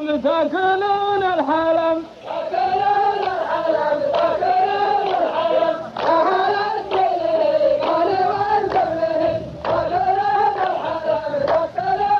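A chorus of voices chanting a sung verse of qalta poetry together in a wavering, repeating melody, with a few sharp hand claps.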